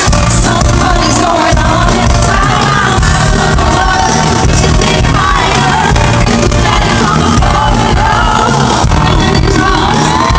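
Loud live pop music with lead vocals, played over an arena PA and heard from within the crowd, with fans shouting along.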